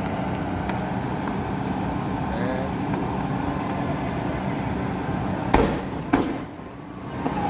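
Fireworks display: two sharp bangs of shells bursting about half a second apart, a little over five seconds in, over a steady background din.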